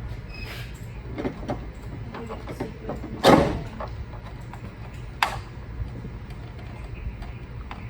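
Handling noises from working a motor cable through an upturned carpet sweeper frame: scattered knocks and scrapes, a louder clunk about three seconds in, and a sharp click about five seconds in.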